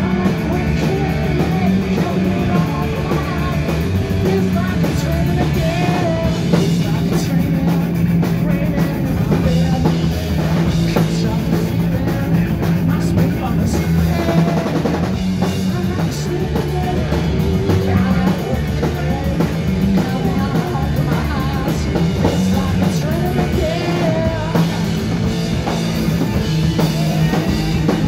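A punk rock band playing loud and live, with electric guitar and drum kit driving on without a break and a man singing.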